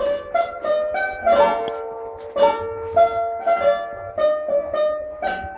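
Kanklės, the Lithuanian plucked zither, playing a melody of single plucked notes, a few a second, each ringing on after it is struck.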